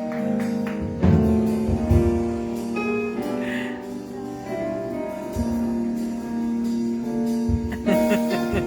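Instrumental music: long held keyboard notes over a bass line.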